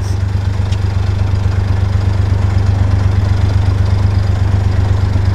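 A narrowboat's diesel engine idling, a steady low hum with no change in speed.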